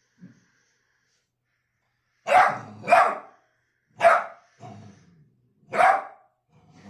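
A dog barking: four loud, separate barks starting about two seconds in, with a couple of softer ones between and after.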